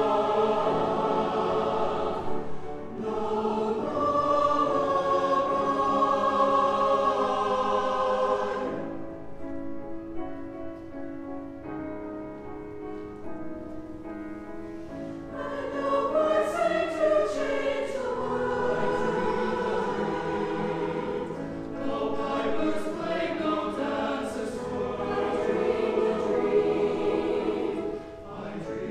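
Mixed-voice choir of men and women singing sustained chords. Full and loud for the first third, then a quieter passage, then the full choir swells again for most of the rest before easing off near the end.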